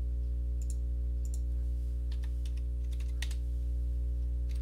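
A scattered handful of short computer mouse and keyboard clicks over a steady low electrical hum.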